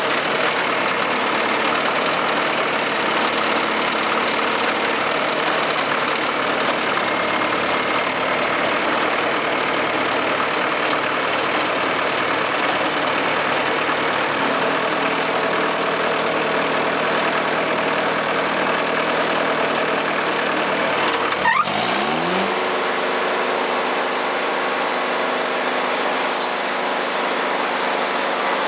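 Wood-Mizer LT40 Super Hydraulic portable sawmill's engine running steadily while the log is handled on the bed. About three-quarters of the way through there is a brief knock, then the engine's pitch rises and holds at a higher, smoother speed.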